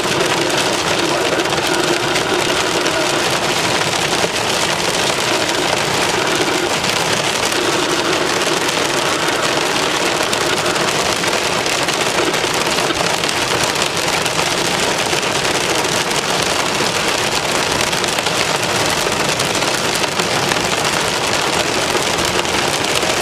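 Quarter-size hail pelting a moving vehicle's roof and windshield, heard from inside the cab as a dense, steady clatter.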